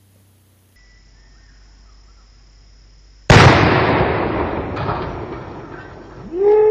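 A rifle shot setting off a Tannerite exploding target: one sudden, very loud blast about three seconds in, its rumble and echo fading away over the next few seconds.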